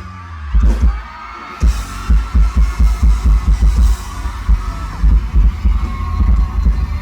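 Live band music through a loud PA with a heavy, fast bass-drum beat and no vocals. The beat drops out briefly at the start and comes back in about a second and a half in.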